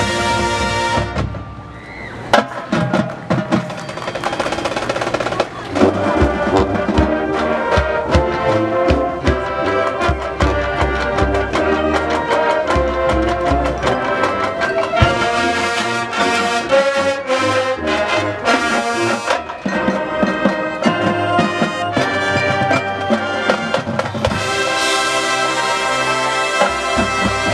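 High school marching band playing: brass chords, with sousaphones on the low end, over drums and front-ensemble percussion. The sound dips briefly about two seconds in, then comes back with a hit at full strength.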